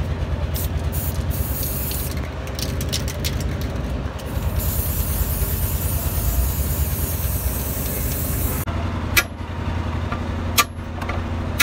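Aerosol spray-paint can hissing as it coats a gearbox bell housing: short bursts at first, then one long continuous spray from about four and a half seconds in that stops abruptly near nine seconds. A steady low machine rumble runs underneath. In the last few seconds a steel rod knocks sharply against the bearing inside the gearbox case three times.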